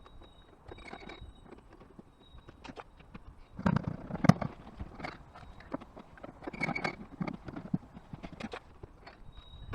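A run of irregular knocks and clunks, loudest in a cluster about four seconds in and again near seven seconds, with faint short high-pitched tones near the start and end.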